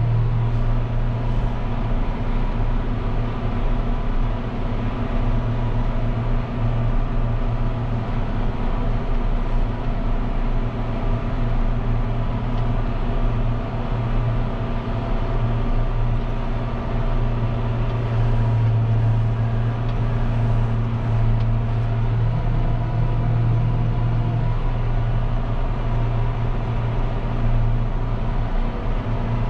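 John Deere 6140M tractor's diesel engine running steadily under load while pulling a field cultivator, heard from inside the cab as an even, low drone.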